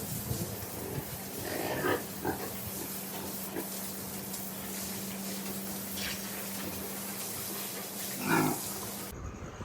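Pigs grunting and squealing in several short calls, the loudest near the end, over a steady hiss and a low hum.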